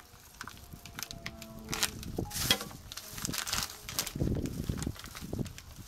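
Plastic wrapping on a turkey breast crinkling and tearing as it is cut open with scissors and the turkey is pulled out over a plastic bag, with scattered sharp crackles and a few duller handling thumps.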